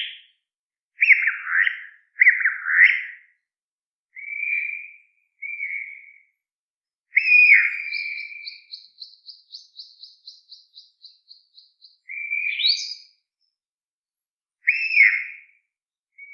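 Birdsong: a series of short calls that slide down in pitch, then, about eight seconds in, a rapid higher trill of roughly four notes a second lasting about four seconds, followed by more calls.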